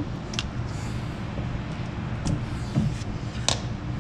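A few light clicks from a hand tool on wiring, over a steady low hum.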